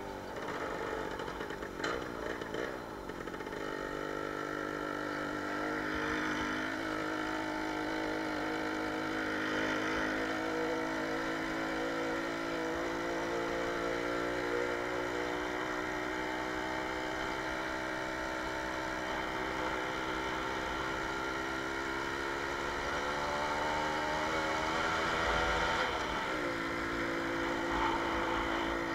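A Jawa 20 Pionýr moped's 50 cc two-stroke single-cylinder engine running under way. The note is uneven for the first few seconds and then steadies. It climbs slowly in pitch through the middle, falls abruptly near the end, and then holds steady again.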